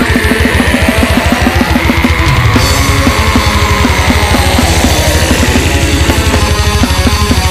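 Heavy metal band recording: distorted electric guitars over fast, dense drumming.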